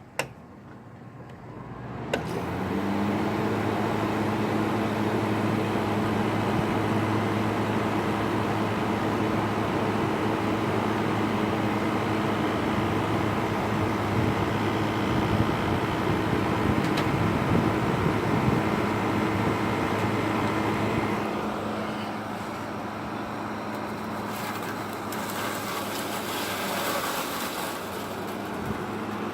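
Frigidaire 5000 BTU window air conditioner starting up: a click, then about two seconds later the compressor and fan motor spin up, briefly rising in pitch, and settle into a steady hum with rushing air. About 21 s in it gets a little quieter, and a hissing noise joins near the end.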